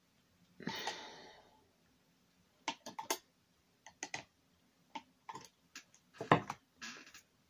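A paintbrush clicking and tapping against its paint, with short scrubbing rustles as paint is picked up and mixed: a scatter of small sharp clicks and knocks, the loudest one about six seconds in.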